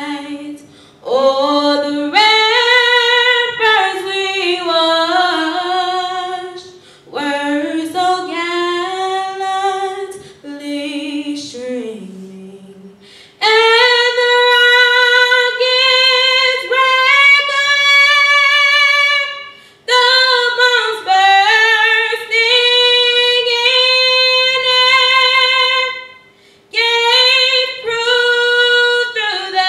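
A woman singing a national anthem solo and unaccompanied, in long phrases with held notes and short breaths between them.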